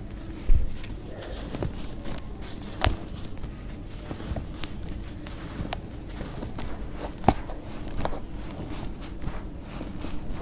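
Hands crushing and sifting dry, powdery sand-cement mix in a plastic tub: a soft gritty crunch and trickle throughout, with scattered sharp crackles as lumps break. A dull thump about half a second in is the loudest moment, and two sharper cracks come later.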